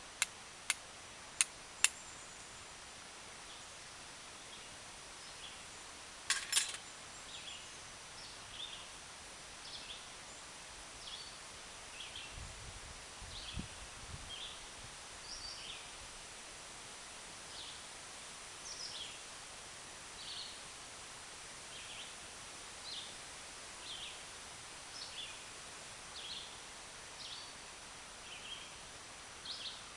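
Steel striker hitting the edge of a flint: four sharp strikes in the first two seconds, then a quick cluster of strikes about six seconds in. After that a small bird gives short high chirps, roughly one a second.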